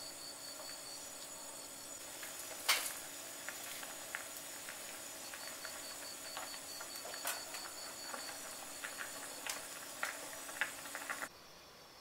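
A stainless steel pot of maesaengi (seaweed fulvescens) and oyster soup at a rolling boil on a gas burner, giving a steady bubbling noise, while a wooden spoon stirs it and clicks against the pot now and then; the sharpest click comes a little under three seconds in. The sound cuts off suddenly near the end.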